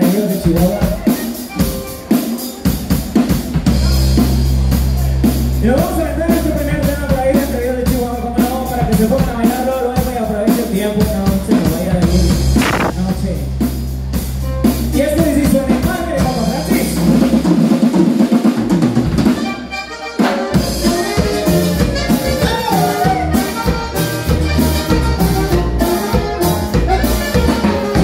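A live norteño-style band playing an upbeat number: drum kit, electric bass, bajo sexto, button accordion and saxophone. The band drops out briefly about twenty seconds in, then comes back in full.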